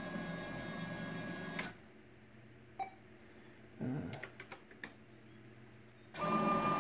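The axis drive motors of a CNC-converted Craftsman 12x36 lathe whine steadily as they drive the slides through ball screws. The first move stops a little under two seconds in, a few short clicks follow, and a second, louder move starts near the end. The even whine matches the axes running smoothly.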